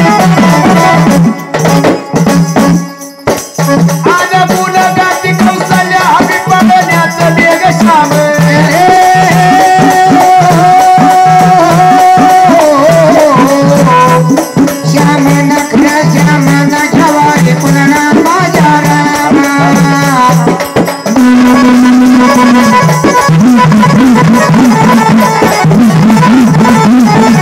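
Instrumental interlude of Marathi gondhal folk devotional music. A melody instrument plays phrases with long held notes over a steady drum beat and rattling percussion. The melody line drops out about three quarters of the way through, leaving a lower held tone and the rhythm.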